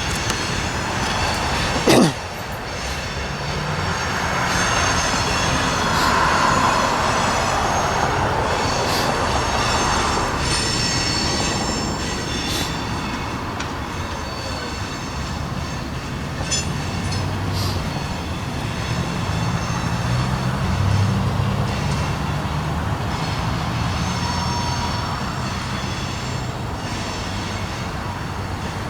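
Norfolk Southern train rolling past: steady rumble of railcars with wheels squealing in high tones that come and go, and scattered clicks from the wheels. About two seconds in a brief loud sweep falls in pitch, and in the second half a low engine drone comes up.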